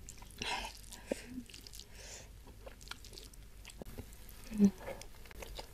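Soft eating sounds of a person eating rice and sambal-coated quail-egg meatballs by hand: a sharp breath about half a second in, then faint scattered clicks and smacks of fingers and mouth as the food is scooped and bitten. A short hummed "mm" comes a little after four and a half seconds.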